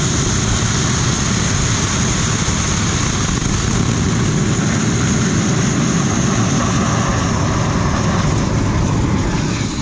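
Small turbojet gas generator of a homemade turboshaft engine running during its start attempt, exhausting through the power-turbine scroll: a steady roar with a high whine that sinks slightly near the end. The start fails to reach idle, which the builder puts down to the turbine being too close to the scroll wall and the scroll's volume and openings being too small.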